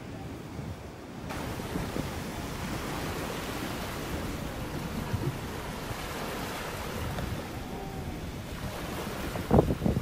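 Atlantic surf washing and breaking against a rocky granite shore, with wind rumbling on the microphone. A few loud thumps come near the end.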